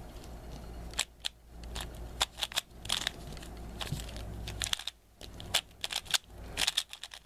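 Quick, irregular plastic clicking and clacking of a Cubicle Premium Valk 3 3x3 speedcube as its layers are turned by hand during a solve, with a brief pause about five seconds in. The cube is new, not yet broken in, and thickly lubed.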